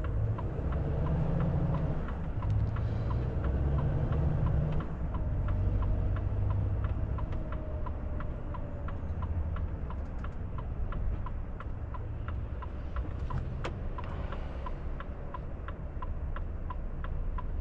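Cab of a Volvo FH truck: the diesel engine's low rumble as the truck pulls away and then slows to a stop, with a steady, regular ticking, about two to three ticks a second, starting about two seconds in.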